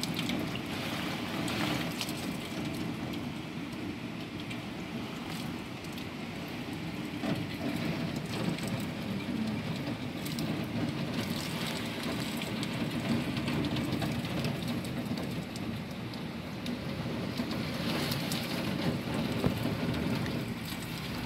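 Heavy typhoon downpour beating on a window pane and sill: a steady rushing hiss of rain with scattered drop ticks.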